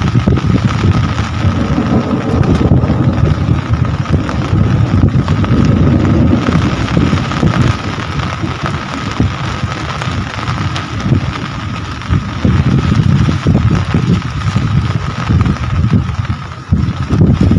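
Heavy rain falling steadily, under a loud low rumble that swells and fades.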